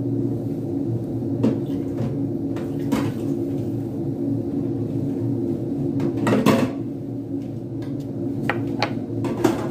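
Light clicks and knocks of a small shaker bottle being shaken and tapped over a glass baking dish, the loudest knock about six and a half seconds in, over a steady low hum.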